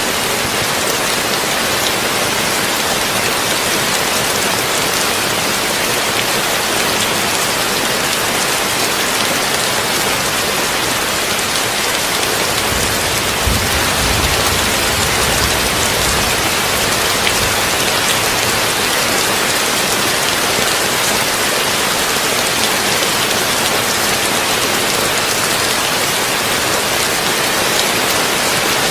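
Heavy rain drumming steadily on a tin roof, with a low rumble of thunder swelling and fading about halfway through.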